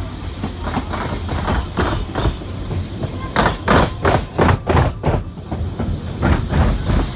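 Narrow-gauge steam locomotive working at the head of the train, its exhaust beats coming about three or four a second and loudest a few seconds in, over the steady low rumble of the carriages running on the track.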